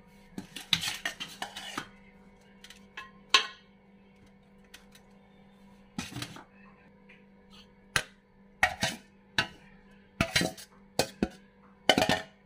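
Metal spoon clinking and scraping against an aluminium cooking pot as masala and seekh kababs are laid over rice. It comes in irregular clusters of clatter, the busiest about a second in and again in the last few seconds, over a faint steady hum.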